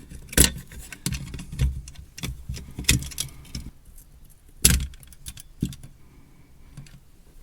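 Handling clatter as an 18650 lithium battery and its wires are pulled out of a cordless screwdriver: a string of sharp clicks and knocks of hard plastic and metal with light rattling between them, the loudest about half a second in and again near the middle.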